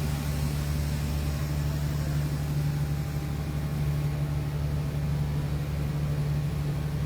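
Boat engine running steadily, a constant low drone heard from on board.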